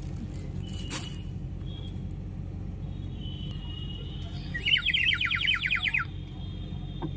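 A bird-like warbling trill, a quick run of about ten chirps a second lasting about a second and a half, most likely a toy water bird whistle being blown at the stall; under it a steady low hum of the busy exhibition hall.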